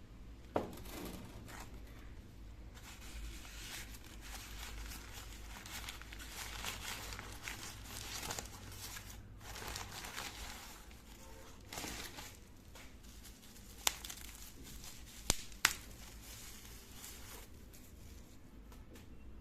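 Packaging being unwrapped by hand: crinkling, rustling and tearing, with one sharp click near the start and three more close together later on.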